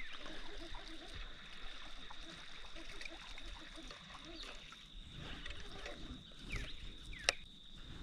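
River ambience: water trickling against a steady high-pitched whine, with a few short chirps and one sharp click about seven seconds in.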